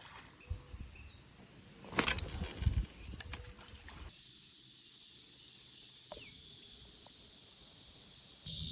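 A loud, steady, shrill insect chorus, typical of cicadas, starts abruptly about four seconds in and cuts off near the end. Before that there are only faint background sounds and a short burst of knocks and rustling about two seconds in.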